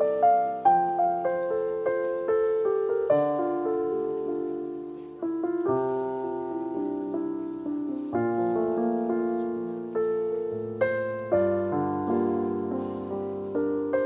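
Solo piano music: a gentle melody over chords, notes struck one after another and left to ring out.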